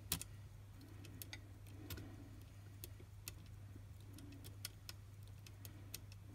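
Faint, irregular metallic clicks and ticks of steel tweezers working a replacement spring into the opened mechanism of a Pentax ME Super camera, over a low steady hum.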